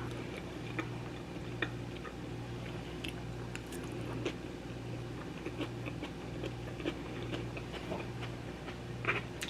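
A person chewing and biting into fried chicken, with soft scattered crunches and mouth clicks. A low, steady hum runs underneath.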